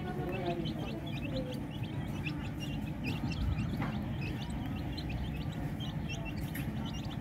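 A brood of young chicks peeping constantly as they feed, many short high cheeps overlapping, over a low steady rumble.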